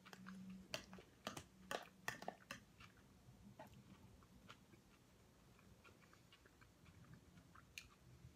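Quiet chewing of soft pasta, with a metal fork clicking and scraping against a plastic food container. The clicks come in a quick cluster in the first two to three seconds, then only a few faint ones, with one more near the end.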